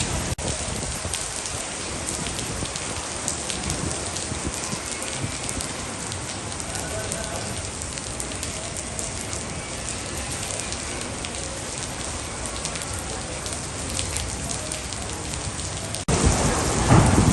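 Steady rainfall, with many separate drop strikes heard through the hiss. About a second before the end it cuts abruptly to louder, heavier rain.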